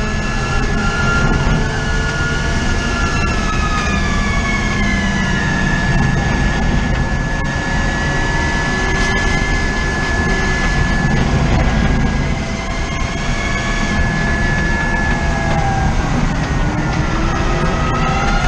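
Cockpit sound of the Forze VII hydrogen fuel-cell race car at racing speed: a high electric drivetrain whine that glides down in pitch twice as the car slows for corners, with a steady high tone held through most of it, over loud road and wind rumble.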